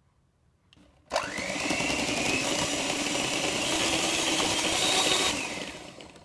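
Tefal electric hand mixer whipping cream in a jug. The motor starts about a second in with a quickly rising whine, runs steadily, and winds down near the end.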